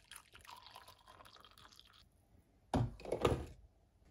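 Coffee pouring from a glass carafe into a mug, a soft trickling pour that stops about two seconds in. About a second later comes a short clatter of knocks, louder than the pour.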